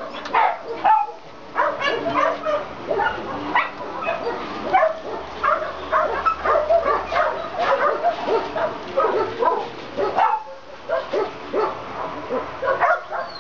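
Many kennelled dogs barking and yipping at once, a dense overlapping chorus of barks with a short lull about ten seconds in.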